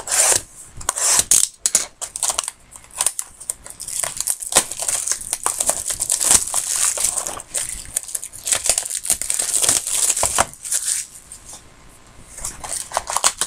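Packaging of a 2012 Topps Triple Threads baseball card box being torn open and crinkled by hand: a dense, irregular crackling that eases off briefly near the end.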